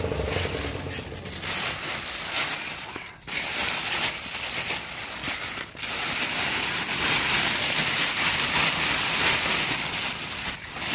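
A thin plastic bag lining the chopper's catch bin crinkling and rustling as it is handled and pulled open, with short pauses about three and six seconds in.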